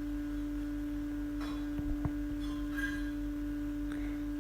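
A steady single-pitched hum throughout, with a few faint light clicks in the middle.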